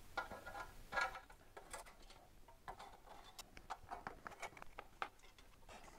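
Faint, scattered clicks and small metallic ticks of a Torx screwdriver working the screws out of a motorcycle exhaust heat shield.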